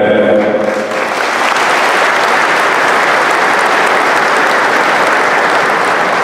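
The last sung notes of an anthem end within the first second, then a large audience in a big hall breaks into steady applause.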